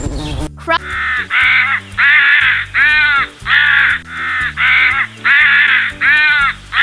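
Crow cawing, about ten loud caws in quick succession over a backing music track.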